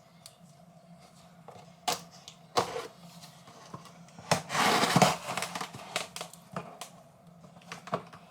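Handling sounds: a few sharp clicks and knocks, with about a second of rustling and crinkling near the middle.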